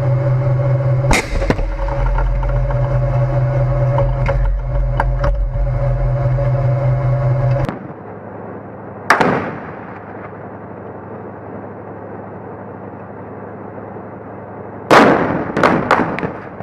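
A tank's engine running loud and steady beneath sharp gunshot cracks. After a sudden drop in level, a single blast with a fading tail about nine seconds in, and near the end the loudest sound, a heavy blast followed by three quick cracks as debris flies ahead of the tank.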